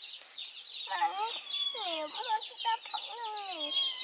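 Chickens clucking: a run of short calls that each fall in pitch, starting about a second in, over steady high chirping.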